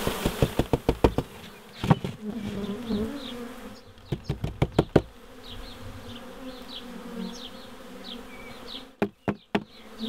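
A swarm of honey bees buzzing around an open hive while a cardboard box is knocked against the hive box to shake the bees, queen included, out into it. There is a quick run of sharp knocks at the start, another burst about four seconds in, and a few more near the end.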